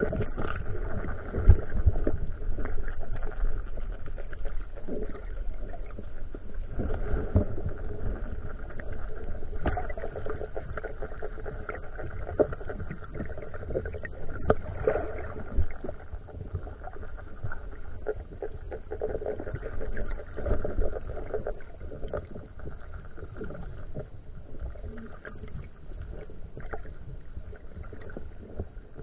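Underwater sound picked up by a camera in a waterproof housing: a steady low rumble with fainter hums running through it, and scattered sharp clicks and knocks.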